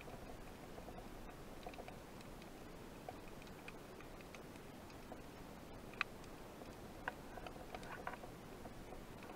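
Faint underwater ambience recorded with the camera submerged: a low hiss with scattered soft clicks and ticks, a sharper click about six seconds in and a short cluster of clicks near the end.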